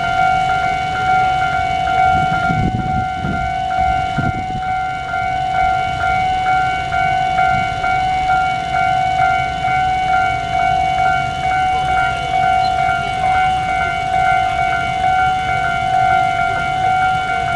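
A steady pitched tone, held at one pitch without rising or falling, over a low rumble.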